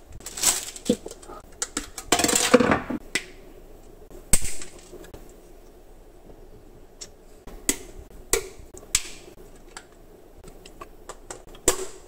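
Plastic packaging crinkling twice as a wall outlet cover plate is handled in its bag. After that come scattered small sharp clicks and taps of plastic parts as the outlet is worked on and its cover fitted.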